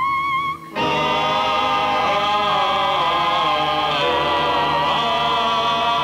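A single wavering tone, gliding upward in pitch, cuts off about half a second in. After a brief break, a choir begins singing held chords as film soundtrack music.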